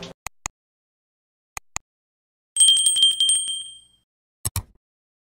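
Subscribe-button animation sound effects: two pairs of short mouse clicks, then a trilling bicycle-bell-style ring that fades over about a second and a half, then another quick double click.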